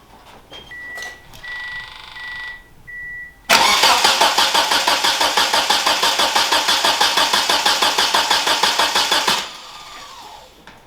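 An electronic chime beeps in a high tone, then the starter cranks the Eagle Talon's turbocharged 4G63 four-cylinder engine for about six seconds in a fast, even chug without it firing, and cuts off. It fails to start because something was left unplugged after the fuel pump swap.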